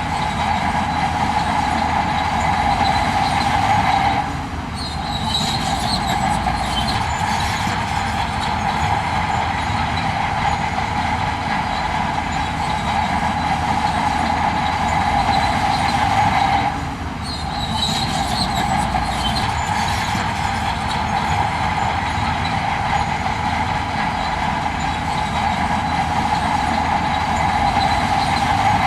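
Heavy earthmoving machinery working: a diesel engine running hard with a steady metallic grinding and faint squeals. The sound eases briefly about four seconds in and again about seventeen seconds in, then picks back up.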